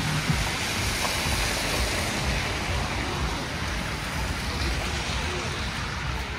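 Steady rushing noise of a snowy city street: wind mixed with traffic running on slushy pavement.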